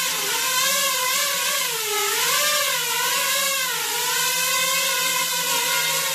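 Fibre-optic FPV quadcopter hovering: its brushless motors and propellers whine steadily, and the pitch wavers gently up and down as the throttle is constantly corrected to hold the hover.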